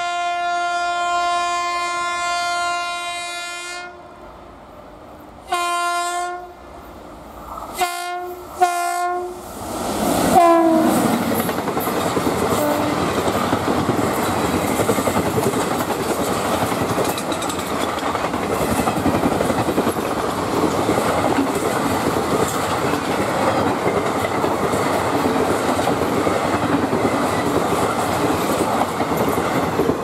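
WAP7 electric locomotive's horn: one long blast of about four seconds, then a string of short honks, the last dropping in pitch as the locomotive passes at speed. Then the express's coaches rush past with steady wheel and track clatter.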